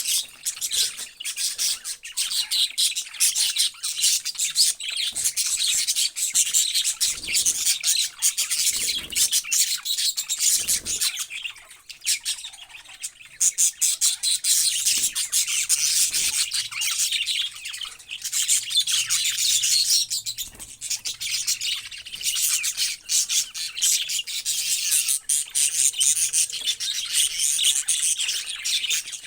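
Many small parrots chirping and chattering at once, a dense, continuous run of high chirps with the odd squawk, easing off for a moment near the middle.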